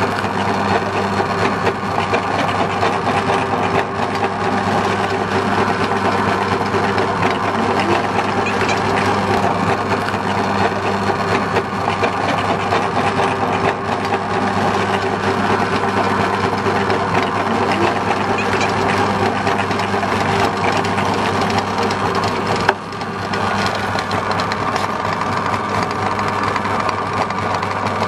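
Stainless-steel meat grinder running steadily with a motor hum, crackling and crunching as bell pepper is forced through its auger and plate with a wooden pusher.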